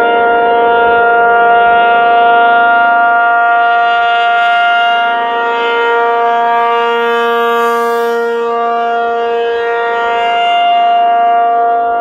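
ACA Penetrator-50 (P-50) tornado siren, driven by its 50 hp three-phase motor, sounding a steady alert tone. Its 8/12-port chopper gives a two-tone chord. The sound fades a little and swells again as the head rotates. The motor is wired correctly, no longer reverse wired, so the rotor turns the right way and the siren gives its proper alert tone.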